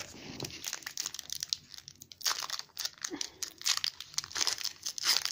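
Foil Pokémon card booster pack crinkling in the hands as it is pulled at and torn open, with bursts of crinkling that come thickest in the second half.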